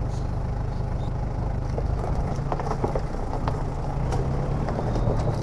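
Toyota Hilux four-wheel drive crawling down a steep, rocky track: a steady low engine rumble, with scattered short knocks and clicks.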